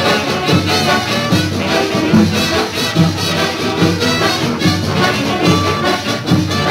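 A Latin big band's brass section, with trumpets and trombones, playing an upbeat tune over a steady beat.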